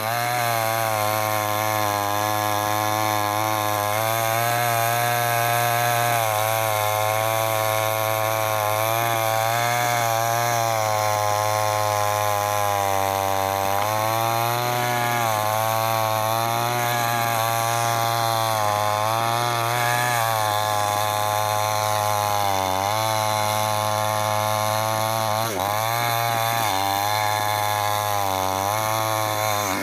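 Chainsaw cutting wood, running continuously under load. Its pitch dips and recovers every few seconds as the chain bites into the wood.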